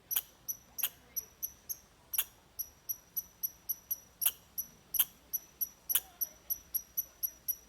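Red squirrel calling: a steady series of short, sharp, high chips, about four a second, with a few louder ones among them.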